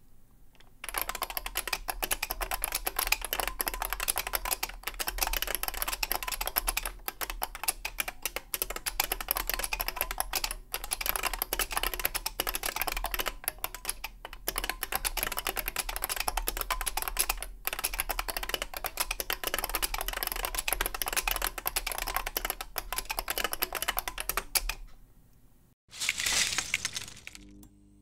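Fast touch-typing on an IBM 4978 beam spring keyboard: a dense stream of crisp clicks from its beam spring switches, with a few brief pauses, stopping about 25 seconds in. A short burst of music follows near the end.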